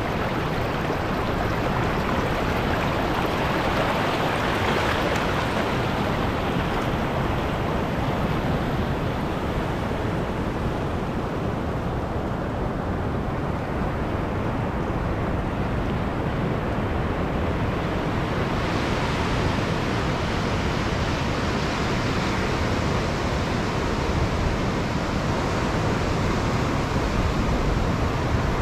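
Ocean surf breaking and shallow seawater washing around a rock at the waterline: a steady rushing noise that swells about four seconds in and turns hissier about two-thirds of the way through.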